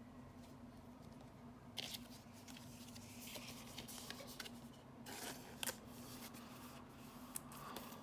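Trading cards being handled and flipped through: faint rustles and sharp little clicks and snaps, the clearest about two seconds in and around five to six seconds in, over a steady low hum.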